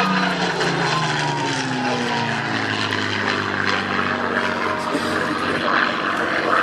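Hispano Buchón, the Spanish-built Messerschmitt Bf 109 with a Rolls-Royce Merlin piston engine, flying past, its engine drone falling in pitch as it goes by.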